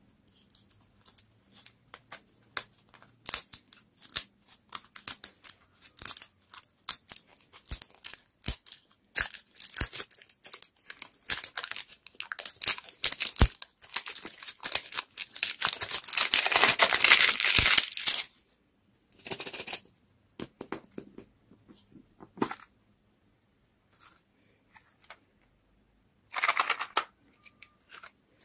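Printed plastic wrapper being peeled and torn off a Toybox toy-and-lollipop ball: sharp crackles and tearing, densest and loudest about 12 to 18 seconds in, then scattered crinkles and a short rustle near the end.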